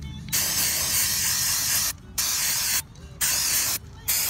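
Aerosol can of electronic contact cleaner spraying in four blasts, a long one of about a second and a half followed by three short ones, washing oil off a circuit board.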